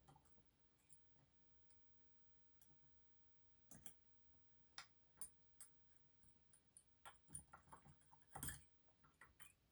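Faint, irregular clicking and tapping of a lock pick probing the pins and sprung sliders inside a dimple lock, thickest in a flurry over the last few seconds.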